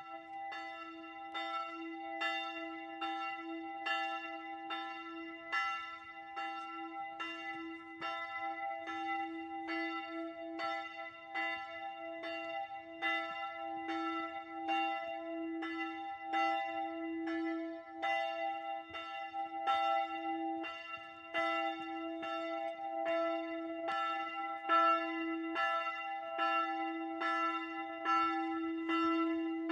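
A single church bell, bell 3 of the Kreuzkirche, ringing on its own with steady, regular strikes a little faster than one per second. Its low hum tone carries on beneath the strikes.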